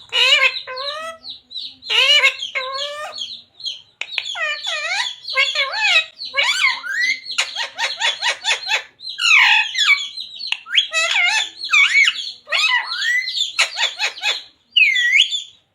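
Ring-necked parakeet chattering and squawking in a quick run of short, sweeping calls, with a fast rattling chatter about halfway through.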